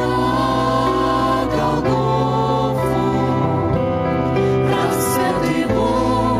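A Christian song sung by a vocal group with instrumental backing: long held sung notes over a steady bass.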